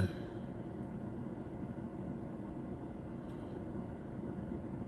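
Steady low hum inside a car's cabin, with a short knock as it begins.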